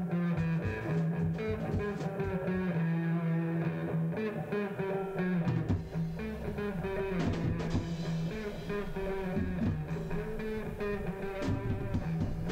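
Background music led by guitar, with plucked and strummed notes over a steady bass line.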